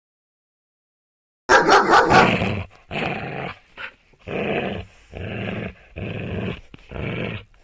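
Dog growling: starting about a second and a half in, one loud, harsh outburst about a second long, then a string of about five short growls, each under a second, with brief gaps between them.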